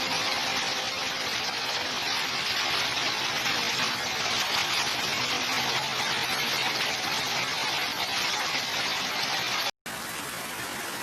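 Heavy rain pouring down, a dense, steady hiss. Near the end it cuts out abruptly for a split second and comes back a little quieter.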